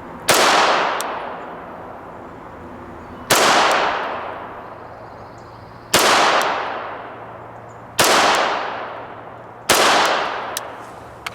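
Five slow-fire 9mm shots from a Sig Sauer P226 Legion single-action-only pistol, spaced about two to three seconds apart, each dying away in a long echo.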